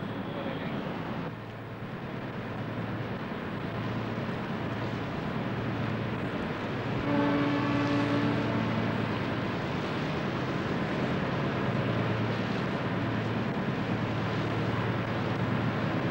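Steady rumble and rush of a ship under way at sea, with a low hum throughout. About seven seconds in, a ship's horn sounds once for about a second and a half.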